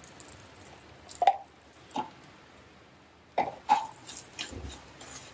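About four short, sharp knocks and scrapes, in two pairs, of a spoon and a wooden spatula against a nonstick kadai as ghee is worked into dry roasting rava (semolina).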